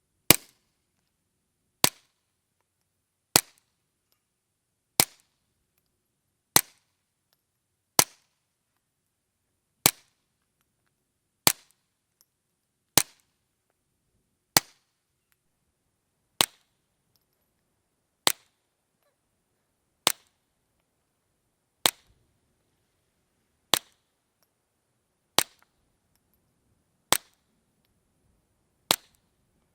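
Suppressed gunshots through a Rugged Suppressors Obsidian 45, fired one at a time, eighteen shots about every one and a half to two seconds, each a sharp crack with a short tail.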